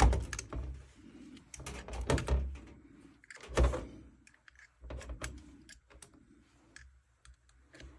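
Scattered knocks and clicks of start capacitors and multimeter test leads being handled, loudest right at the start and again about two and three and a half seconds in, thinning to light ticks near the end.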